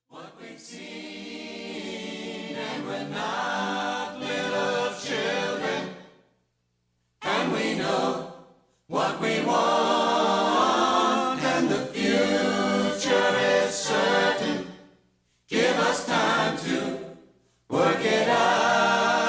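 Choral singing, a choir performing in separate phrases that break off with short silences between them.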